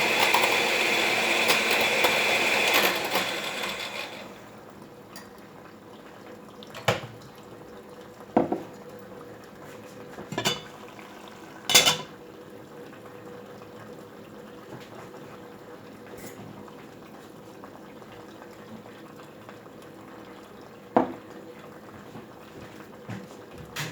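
A small electric kitchen mixer motor whirs steadily while whipping banana and honey, then winds down and stops about four seconds in. After that come a handful of separate clinks and knocks of a utensil against the dish.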